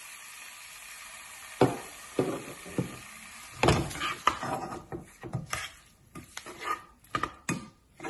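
A plastic spoon stirring diced tomatoes and vegetables in a saucepan, knocking and scraping against the pan in irregular strokes from about a second and a half in.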